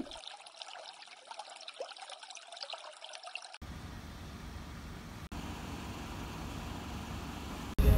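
Water trickling for about three and a half seconds. After a cut it gives way to a steady low rumbling noise.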